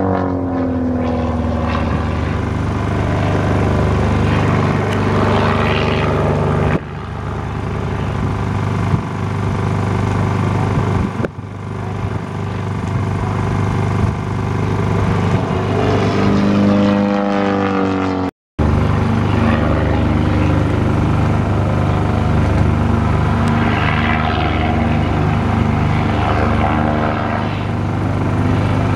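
Aerobatic biplane's piston engine and propeller running overhead, the engine note falling in the first second or so and climbing again a little past halfway as the plane manoeuvres. The sound breaks off for a moment just past halfway.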